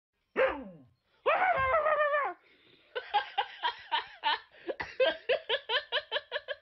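Two pitched calls, the first short and falling, the second longer and wavering. Then a person laughs in a quick run of short pitched bursts, about four or five a second, for several seconds.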